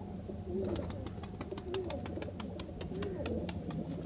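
Domestic pigeons cooing, low rising-and-falling coos repeating one after another, with a run of quick sharp clicks through the middle.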